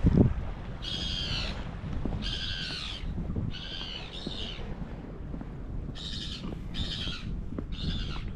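A bird calling over and over, short high calls about one a second, over a low rumble. A loud low thump comes right at the start.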